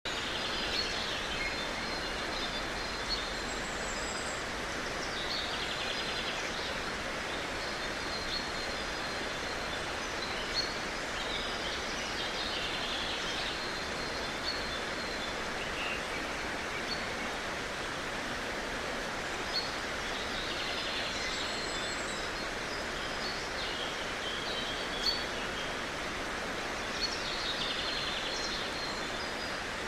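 Steady hiss of noise with faint high chirps coming and going and a small tick every few seconds.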